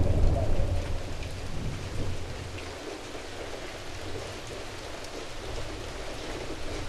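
A deep, thunder-like rumble dies away over the first three seconds or so, leaving a steady hiss like falling rain with faint scattered crackles.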